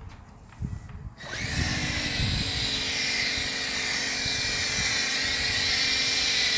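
Pressure washer spraying through a foam cannon: about a second in, a loud, steady hiss of spray starts, with the machine's steady hum underneath.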